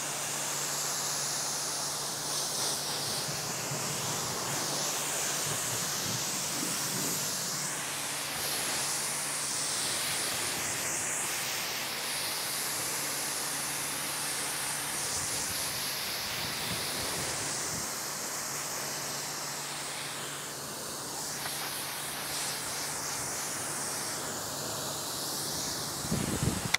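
Pressure washer spraying water over a car's engine bay in a pre-rinse: a steady hiss of spray with a low, even hum underneath, which cuts off at the very end.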